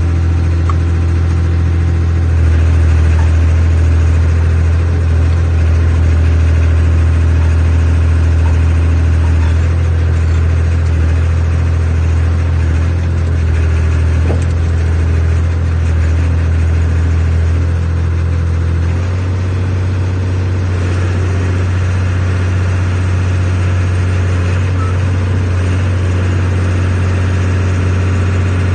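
125B excavator's diesel engine running steadily, heard loud and close from the operator's seat. Its note shifts slightly about two-thirds of the way in.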